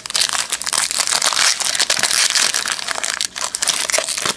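Plastic wrapper of a trading-card pack being torn open and crinkled by hand, a steady run of crackling.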